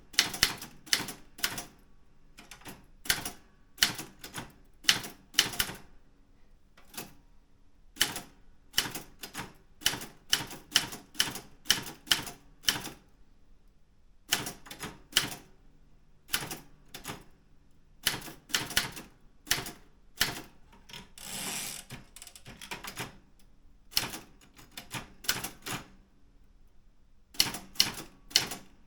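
A Daro Optima M16 manual typewriter being typed on: keystrokes strike in uneven runs, broken by short pauses. There is one longer sliding noise a little past the middle.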